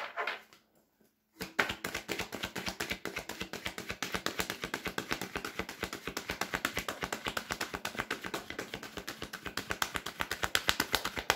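A deck of tarot cards shuffled by hand: a rapid, even run of small card clicks and flicks, about ten a second, starting about a second and a half in.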